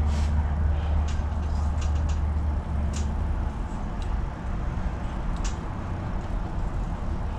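A steady low motor rumble, from a vehicle, that eases off about halfway through, with a few light clicks of a fillet knife against a wooden cutting board as a pompano fillet is trimmed away from its rib cage.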